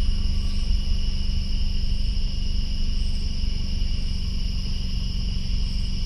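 Steady night chorus of crickets and katydids, a continuous shrill trill at two high pitches, over the low steady hum of the car.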